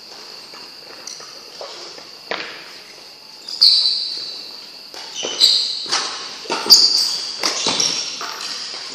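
Badminton rally: rackets striking the shuttlecock in sharp, echoing hits, a few at first, then several close together in the second half. Footsteps on the court come in between, over a steady high-pitched whine.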